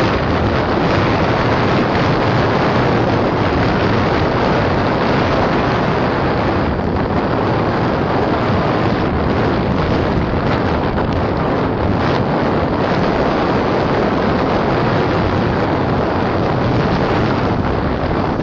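Steady rush of wind on the microphone of a vehicle moving at road speed, a dense, even roar with no distinct engine note standing out.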